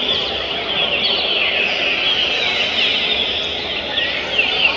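Green-winged saltators (trinca-ferro) singing: many short, overlapping whistles that slide downward, over a steady background murmur.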